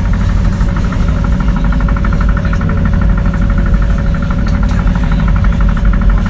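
Cabin noise of an MTrZ-6223 trolleybus: its onboard machinery running with a fast, even pulsing over a low rumble and a steady hum.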